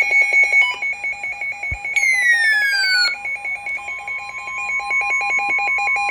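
Electronic emergency-alert tones signalling a severe thunderstorm warning. A fast rhythm of alternating high and low beeps runs throughout, a falling sweep comes about two seconds in, and a steady single tone joins about four seconds in.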